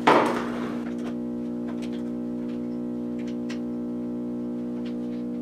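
Background music holding a steady chord. A sharp metallic clack comes right at the start, then a few light clicks of locking-pliers clamps being set on the sheet-metal body panel.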